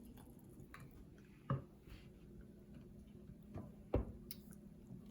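A few light knocks and clicks of kitchenware being handled, one about a second and a half in and two close together near the end, over a faint steady hum.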